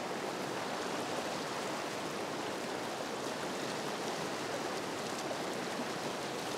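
Fast, high-gradient river run rushing over rocks: a steady wash of whitewater.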